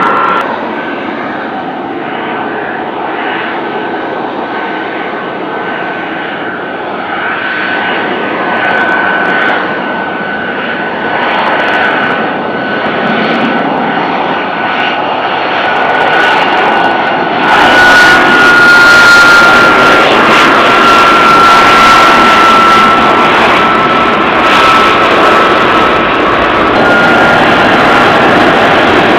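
F-35B Lightning II's Pratt & Whitney F135 jet engine running as the jet rolls along the runway: a steady high whine over a broad rush of noise. About two-thirds of the way through it gets louder and fuller, and the whine slowly drops in pitch.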